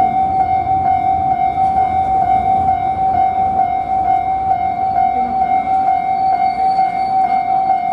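Japanese railway level-crossing warning bell ringing, a single high electronic tone pulsing rapidly and without a break, over a steady low rumble.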